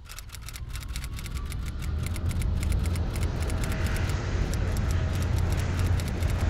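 Rapid typewriter-style key clicks as text is typed out, over a low engine rumble that builds up during the first couple of seconds and then holds steady.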